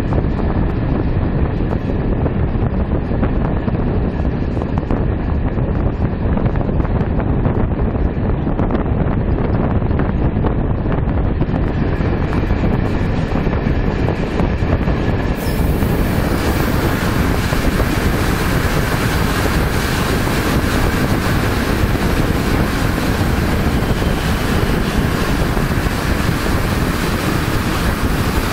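Passenger train running, heard from an open carriage window: a steady rumble of wheels on rail mixed with wind noise. About halfway through the sound turns brighter and hissier.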